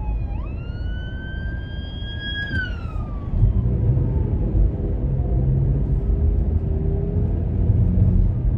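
Emergency vehicle siren sounding one wail: it jumps up in pitch, climbs slowly to a peak and falls away, fading out about four seconds in. It is heard from inside a car, over the steady low rumble of the car's engine and road noise.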